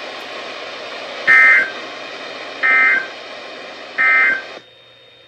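NOAA Weather Radio sending three short bursts of SAME digital data tones about a second and a third apart over a steady hiss, the end-of-message code that closes an alert. The hiss cuts out about four and a half seconds in.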